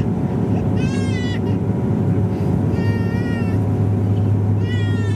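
Bombardier DHC-8 Q400 cabin on approach with the landing gear down: the turboprops and propellers give a loud, steady low drone with a few steady higher tones. Over it a high, wavering cry, like a baby's or a cat's, comes three times about two seconds apart.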